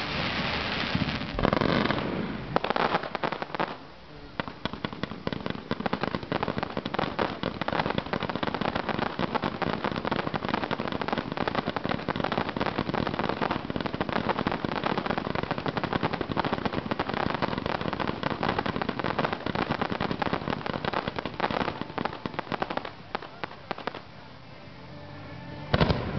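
Aerial fireworks: a few separate shell bursts at first, then a long stretch of dense, rapid crackling from crackle-effect shells, which thins out near the end before one more loud burst.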